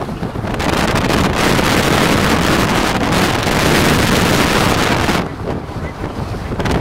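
Heavy rain and wind beating on a car, a dense rushing noise that builds about half a second in and eases off a little near the end.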